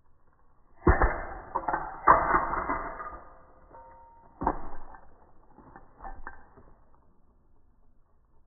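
Toys being knocked about and handled: three loud knocks with clatter trailing after each, and a few lighter knocks later on.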